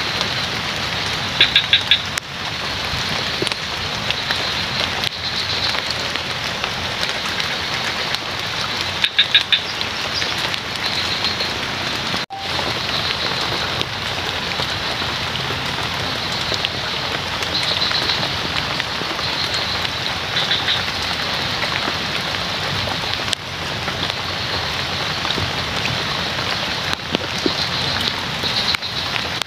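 Steady rain falling on pond water and surrounding foliage. Twice, about a second and a half in and again about nine seconds in, a frog gives a short call of a few quick pulses, with softer calls here and there between.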